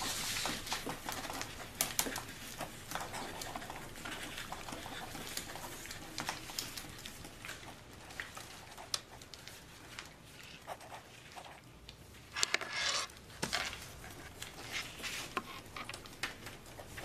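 Pencils scratching and tapping on test papers in a quiet room full of people writing, with papers rustling. A louder stretch of rustling comes around twelve seconds in.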